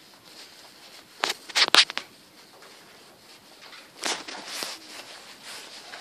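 Handling noise from a handheld camera held against clothing: a few sharp knocks and scrapes about a second in, then softer rustling of fabric around four seconds in.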